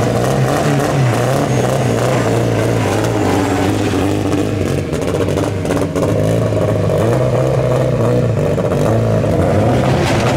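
Turbocharged Acura RSX race car's engine running loudly at a rough high idle as the car creeps toward the start line, its pitch lifting and dropping a little with light throttle.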